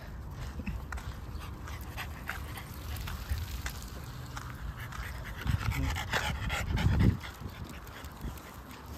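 French bulldogs panting. About five and a half seconds in a louder rushing noise rises over it and cuts off suddenly about a second and a half later.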